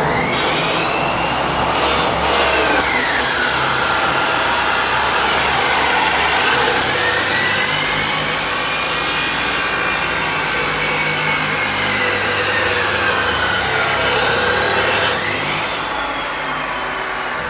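Abrasive chop saw's cut-off wheel grinding through square steel tubing: a loud, hissing grind with the motor's whine dropping in pitch as the wheel is pressed into the steel and rising again as the pressure eases, twice over. Near the end the grinding dies down as the cut finishes, while the motor whine carries on.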